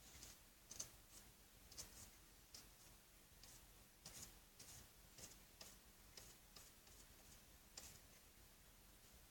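Faint strokes of a paintbrush working acrylic paint on a canvas: about a dozen short, soft swipes and dabs at an uneven pace, roughly one or two a second.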